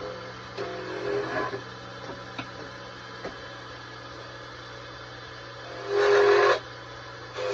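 Belt-driven electric wood lathe running with a steady hum while a hand-held turning tool cuts a spinning wooden molinillo, giving short scraping cuts near the start and one loud half-second cut about six seconds in.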